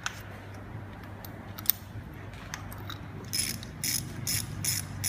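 Ratchet wrench clicking in short, evenly spaced strokes, about two a second, starting about three seconds in, as a spark plug is screwed into a Subaru boxer engine; before that only a few light clicks.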